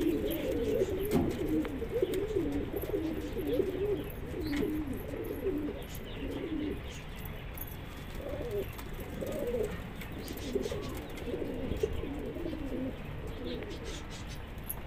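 Pigeons cooing: several low, warbling coos overlapping, thinning out to separate calls after about halfway.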